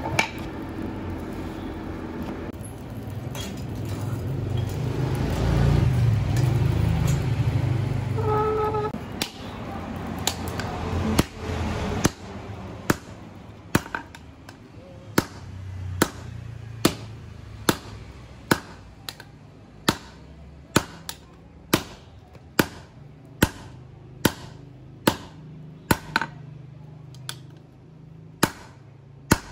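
A steady low rumble, then hand-hammer blows ringing on steel at an even pace of about one a second, from about nine seconds in: the 6 mm AN-26 landing-gear steel being forged into a knife.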